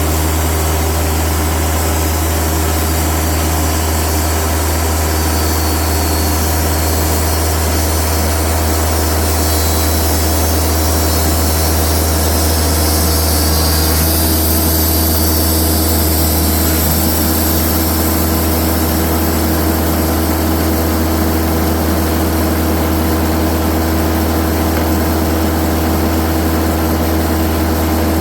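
Band sawmill running steadily under engine power, with a high-pitched hiss above the engine note that brightens about halfway through.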